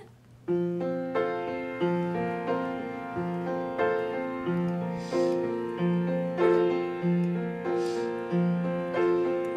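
Upright piano playing a slow accompaniment, starting about half a second in: a low note struck roughly once a second under held chords.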